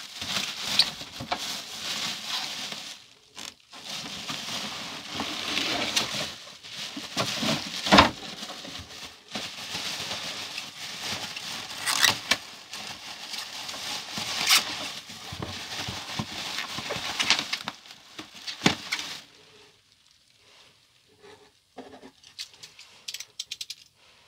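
Plastic bubble wrap rustling and crinkling as it is handled and pulled about inside a cardboard box, with a few sharp snaps. In the last few seconds it goes quiet except for a run of small clicks from an orange snap-off utility knife being handled.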